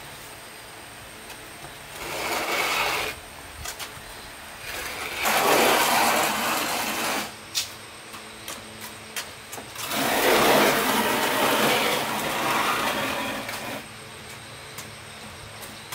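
Heavy solid-wood stools dragged across a concrete floor: three scrapes, the last the longest, with light wooden knocks between them.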